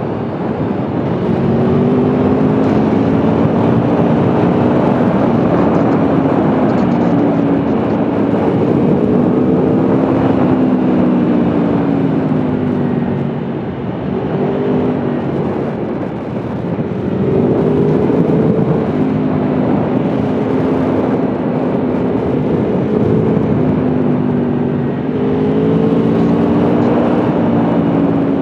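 Aprilia Tuono V4 1100's V4 engine pulling through a series of corners, its pitch rising and falling again and again as the throttle is opened and closed, easing off briefly about halfway through. A steady rushing noise runs underneath.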